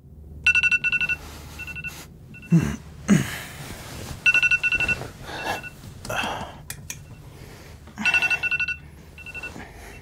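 Smartphone alarm beeping: a high tone pulsed rapidly in short bursts that repeat, with rustling and a couple of short low groans between the bursts.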